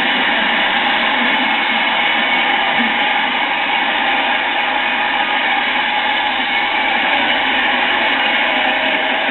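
Large audience cheering and applauding in a loud, steady wash of noise. The sound is muffled and thin, with nothing in the top end.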